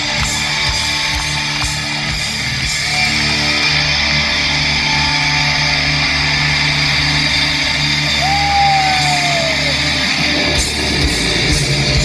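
Hard rock band playing live in an arena, electric guitars to the fore over a wash of crowd noise. About eight seconds in, a single held note slides down in pitch.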